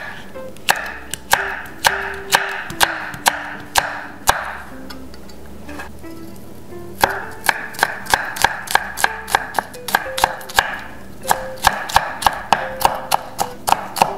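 Kitchen knife chopping a green chili pepper on a wooden chopping block: sharp knocks about twice a second, a short lull, then quickening to three or four a second as the pepper is minced finely.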